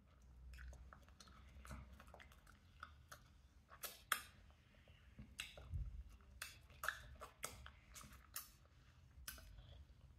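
Faint wet chewing and sucking on a mango slice, with irregular small mouth clicks and smacks.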